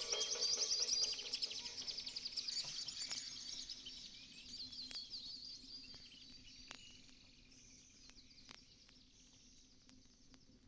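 A chorus of tropical bird chirps and tweets, a sample in a dance track's outro, sounding alone once the beat stops. It fades out gradually, with a few sharp clicks in the second half.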